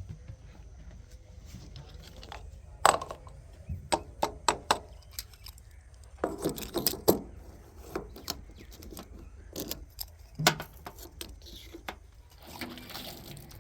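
JCB 3DX backhoe loader at work loading mud: a low diesel engine rumble under irregular metallic clanks and knocks, sometimes in quick clusters, loudest about three seconds in and again about ten seconds in.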